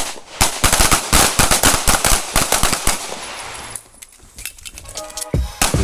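Rapid, overlapping handgun shots from several pistols firing at once, a dense volley for most of the first four seconds, then a pause and scattered shots. Music fades in near the end.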